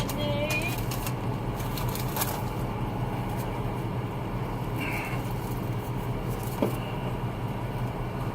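Car engine idling, a steady low hum heard inside the cabin, with a few faint clicks.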